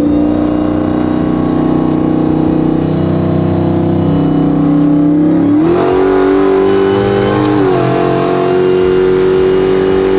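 Supercharged 6.2-litre Hellcat Redeye V8 in a Ram pickup, running under way. Its note holds steady, rises a little over halfway through as the truck pulls harder, then dips briefly and climbs back up near the end.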